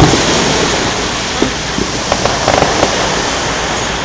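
An aerial firework shell bursts with a boom at the start, followed by a steady crackling hiss with scattered small pops.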